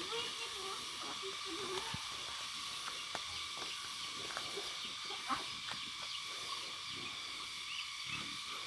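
A flock of ducks and chickens feeding at a basin: scattered pecking and dabbling clicks and a few short duck calls near the start, over a steady high hiss.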